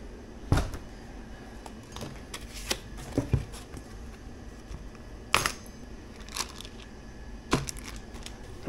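A handful of sharp, irregularly spaced clicks and snaps as a foam-padded, plastic-wrapped bicycle wheel is handled and cut free of its packaging. The loudest snaps come about half a second in and about five and a half seconds in.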